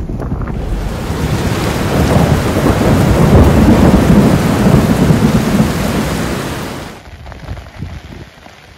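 Heavy rain with a long roll of thunder, the rumble loudest midway and cutting off abruptly about seven seconds in, leaving lighter rain.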